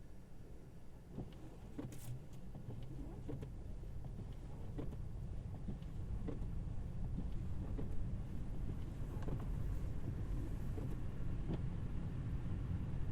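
Road noise inside a Tesla Model Y's cabin: the steady low rumble of tyres on a snowy road, slowly growing louder, with scattered small ticks and knocks.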